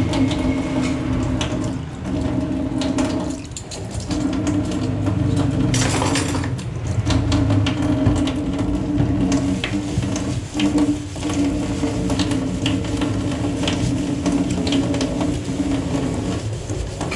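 Tap water running into a stainless steel sink under a steady low hum, with scattered clicks, knocks and scrubbing as hands rinse cutlery, squeeze a sponge and wipe the steel basin.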